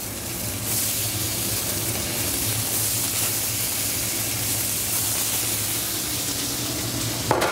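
Thin salmon fillets sizzling steadily in hot olive oil in a very hot cast-iron pan as they are blackened; the sizzle grows louder about a second in.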